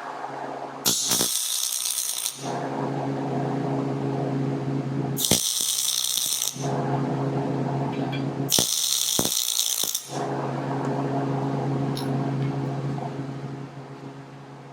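MIG wire-feed welder laying three short welds, each arc a crackling hiss lasting about a second and a half, with a steady hum in between.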